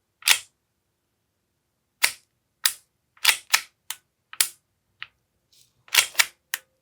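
Sharp plastic-and-metal clacks of an AAP-01 airsoft pistol being worked by hand, the bolt cycled and the trigger dry-fired: about ten single clicks at uneven intervals, with a quick cluster near the end.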